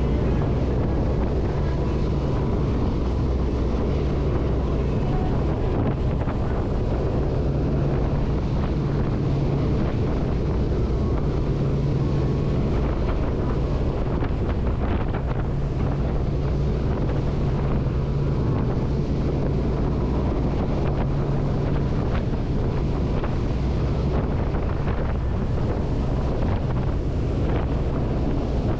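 92-foot Viking sportfishing yacht running underway: a steady low engine drone under the rush of the wake, with wind buffeting the microphone.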